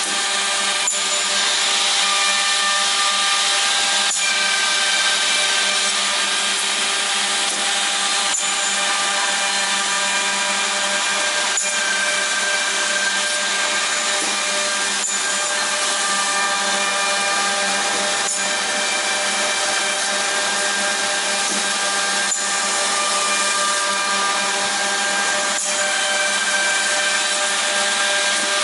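OTT Tornado edge banding machine running: a steady whine of its motors and spinning cutter units, with a sharp click every three to four seconds.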